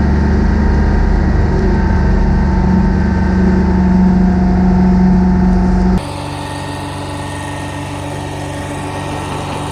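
Hopto H-1900 hydraulic excavator's engine running steadily with a strong low hum. About six seconds in it cuts suddenly to a quieter, thinner take of the engine running.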